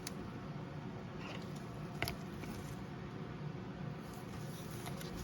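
Faint handling of trading cards, with a soft click about two seconds in, over a low steady background hum.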